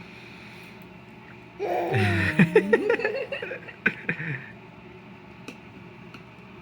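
A baby making funny vocal sounds: a burst of gliding, squealy voice with a few sharp clicks. It starts a little under two seconds in and lasts about three seconds.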